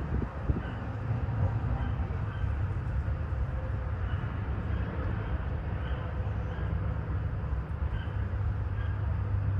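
A steady low rumble with faint, short high chirps recurring about once a second above it.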